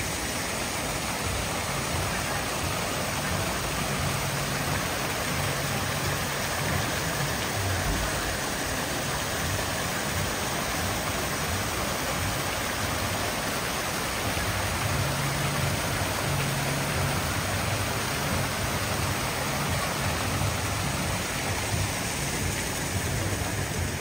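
Steady rushing of water pouring down a fountain cascade wall into a pool.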